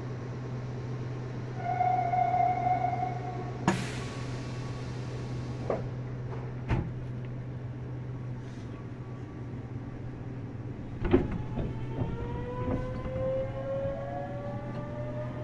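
Meitetsu 100 series electric train at a stop, heard from inside the car over a steady low hum: a short held tone, a burst of compressed-air hiss and a few clunks. Near the end the Mitsubishi GTO-VVVF inverter starts a rising whine of several pitches as the train begins to pull away.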